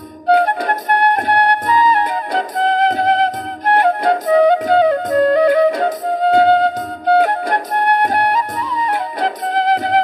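Background music: an ornamented melody played on a wind instrument over a steady drum beat, breaking off for a moment at the start and then picking up again.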